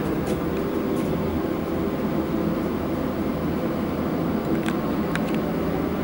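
Steady low mechanical hum, with a couple of light clicks near the end.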